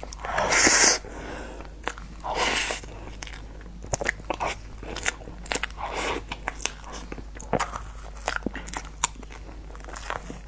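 Close-miked mouth sounds of eating a soft cream dessert with a spoon: many short wet smacks and clicks. Two louder rushing bursts come about half a second and two and a half seconds in.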